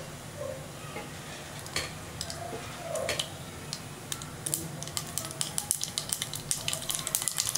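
Mustard and cumin seeds sizzling and crackling in hot oil for a South Indian tempering, with sparse pops early on that grow denser and louder over the second half.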